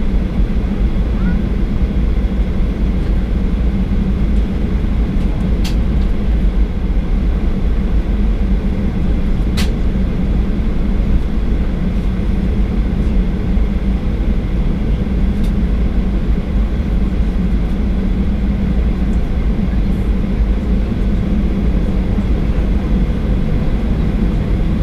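Cabin noise of a Boeing 737-800 taxiing after landing: a steady low rumble of the idling CFM56 engines and the rolling airframe, with a few faint clicks.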